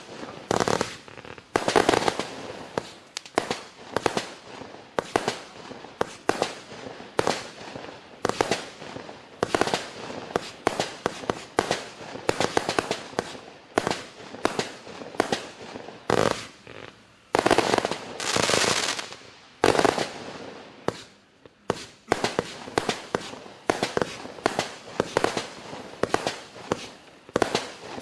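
Klasek 'Fireworks Show 268' compact firework cake firing shot after shot: sharp bangs of launches and bursts, about one to two a second. About two-thirds of the way in comes a thick stretch of rapid bangs and crackle, followed by a brief lull.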